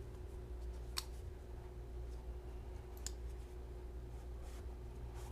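Folding knives being handled, with two sharp clicks about a second and three seconds in and a few fainter ones, over a faint steady hum.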